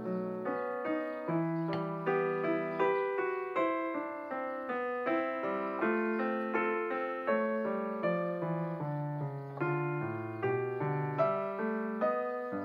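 Background piano music: a melody of struck notes over a bass line, each note fading after it is played.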